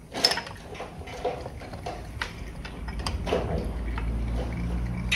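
Wrench clicks and small metal knocks as the primary-case drain bolt of a Harley-Davidson Sportster is worked loose, over a faint trickle of engine oil draining into a pan. A low steady rumble builds from about three seconds in.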